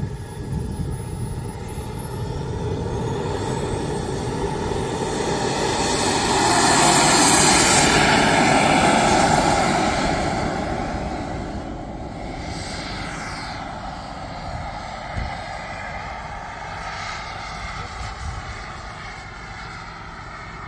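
Turbine engine of a large radio-controlled model jet spooling up with a rising high whine, then a loud jet rush as it takes off, peaking about seven seconds in and fading as the jet climbs away.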